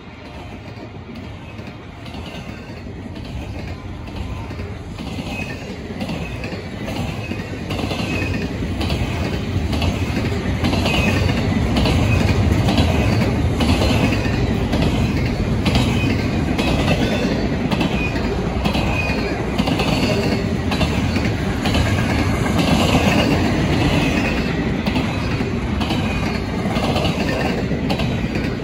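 Double-stack intermodal freight train's well cars rolling past, a steady rumble of wheels on rail with regular clacking as the wheels cross rail joints. It grows louder over the first dozen seconds and then holds.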